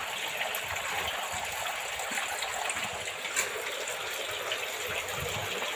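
Water flowing through a chicken-house evaporative cooling pad and splashing along the gutter at its base: a steady, even rush during a flow test of the pad.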